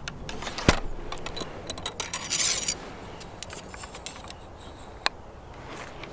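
Close handling noise of gear being moved: a run of sharp clicks and knocks with rubbing, a longer rasping scrape about two seconds in, and a single sharp click about five seconds in.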